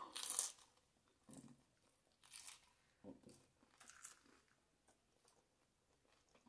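Faint crunching and chewing of hard-shell tacos: a few soft, separate crunches of crisp corn shell about a second apart, the loudest at the very start.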